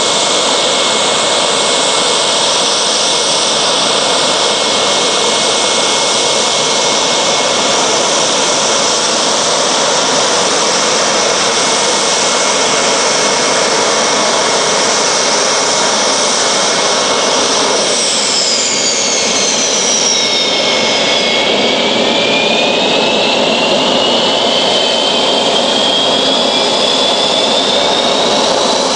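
Dassault Mirage fighters' SNECMA Atar turbojets running loud and steady at close range: a dense roar with a high whistling whine. About two-thirds of the way through, the high whines fall in pitch, and then another whine climbs steadily as an engine changes power.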